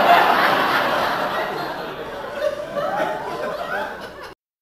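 A group of people laughing and chuckling, loudest at the start and cut off abruptly near the end.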